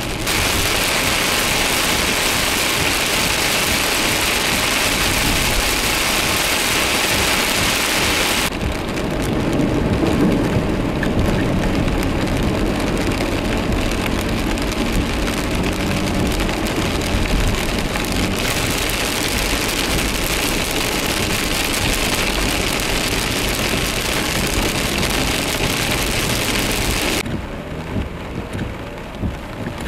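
Steady hiss of heavy rain and of tyres spraying through standing water on flooded streets. In the middle the hiss turns lower and more rumbling as a car drives along the wet road, and the rain sounds quieter near the end.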